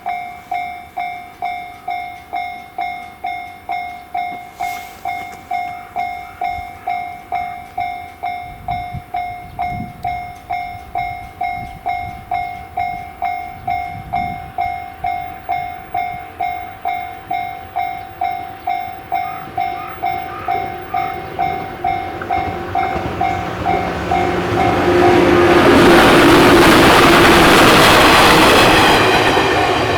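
Japanese railway level-crossing alarm ringing its electronic 'kan-kan' bell in a steady rhythm of about one and a half strikes a second. A train comes through the crossing about three quarters of the way in, and its passing rush is the loudest sound, peaking near the end.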